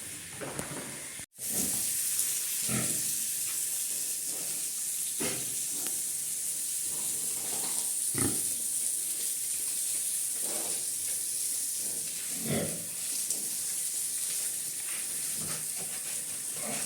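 Pigs grunting now and then, short grunts every two seconds or so, over a steady high hiss. A brief dropout about a second in.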